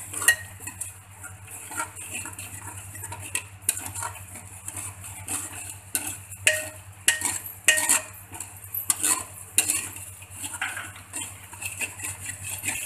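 Metal spoon stirring and scraping around a hammered metal pot, with irregular clinks against its sides, as ginger-garlic-green-chilli paste fries in ghee with a light sizzle. The paste is kept moving so it doesn't stick.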